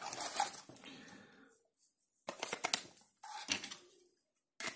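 Rustling of a cardboard phone box and its paper insert being handled, then, after a short pause, two groups of light plastic clicks and taps as the removable battery is fitted back into a Leagoo M5 smartphone.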